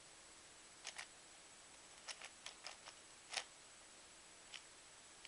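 Plastic layers of a 3x3x7 cuboid puzzle cube being turned through an edge-cycling algorithm: about nine short, sharp clicks at an uneven pace, bunched between two and three seconds in.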